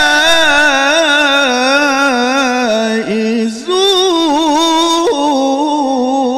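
A male qari's solo voice in melodic Quran recitation (tilawah), holding long ornamented notes with a wavering vibrato, drawing out the phrase 'ashab al-jannati hum al-fa'izun'. There is a brief break about three seconds in before the line resumes.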